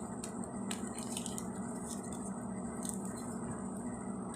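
A few faint, short clicks and taps of loose nickels and their packaging being handled, over a low steady hum.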